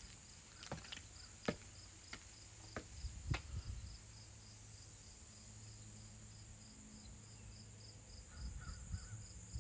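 Footsteps on concrete steps, about five in the first three and a half seconds. They play over faint crickets chirping in an even pulse of about three chirps a second.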